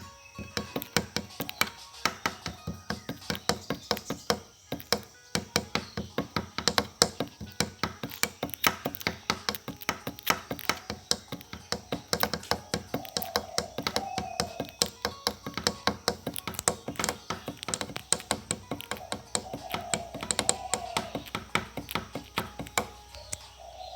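Rapid, irregular sharp clicks and taps, several a second, with a few short wavering calls in the second half.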